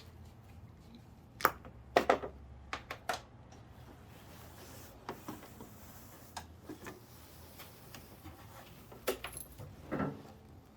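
Scattered sharp clicks and light metallic clinks of small metal objects being handled, a cluster of louder ones about two seconds in and a couple more near the end.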